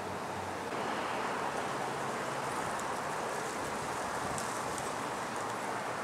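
Steady wind rushing over the microphone, a little stronger from about a second in.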